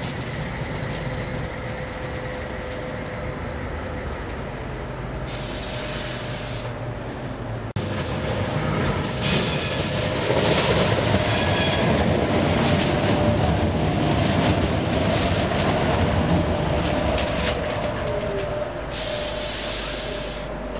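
Sheffield Supertram Siemens-Duewag trams running on the line and through the stop: a steady whine over the sound of wheels on rail. Two short hisses come through, and the sound cuts off abruptly about eight seconds in before getting louder as a tram passes close by.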